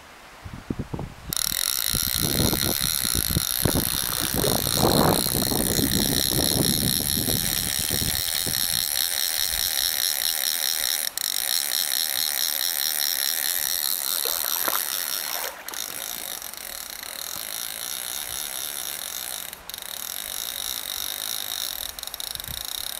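Fly reel's click-pawl ratchet buzzing steadily as line runs off the spool: a hooked salmon taking line. It starts suddenly about a second in and grows softer about two-thirds of the way through.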